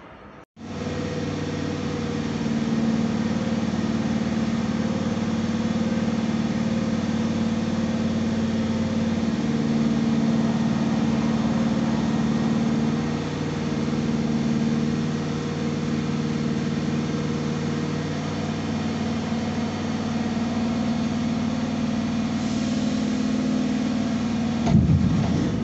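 Berlin S-Bahn electric train running, a steady hum with several held tones that shift slightly a few times. A brief louder rush comes near the end.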